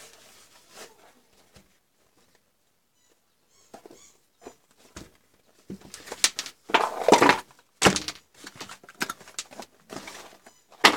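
Handling noise as multimeter test leads and their soft fabric pouch are packed away: faint rustling at first, then after a short lull a busy run of rustles, clicks and sharp knocks, the loudest a little past the middle and one more sharp knock near the end.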